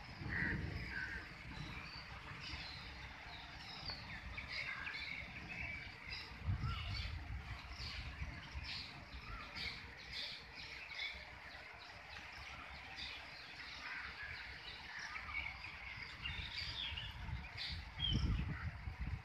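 Many birds chirping and calling over a steady outdoor hiss, with low gusts of wind rumbling on the microphone about six seconds in and again near the end.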